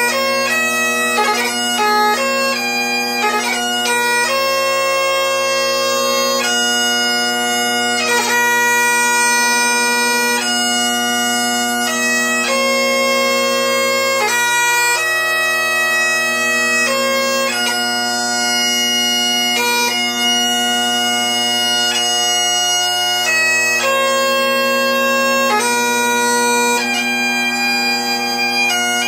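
Great Highland bagpipe playing piobaireachd: the drones sound steadily beneath the chanter's slow melody of long held notes. Quick grace-note flourishes break up the notes in the first few seconds.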